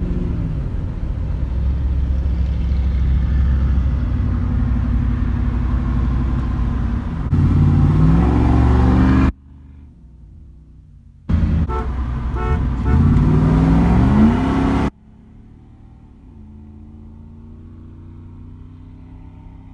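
Pickup truck engines heard from inside a truck cab: a loud steady drone, then revving up with rising pitch twice as the trucks accelerate. Each loud stretch cuts off suddenly to a much quieter cabin drone.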